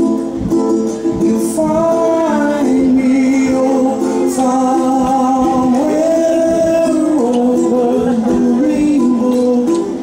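A song playing: a sung melody over guitar.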